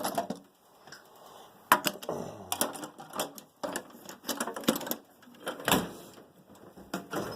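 Clicks and clatter of metal tools and steel tool box drawers being handled, with a sharp knock a couple of seconds in.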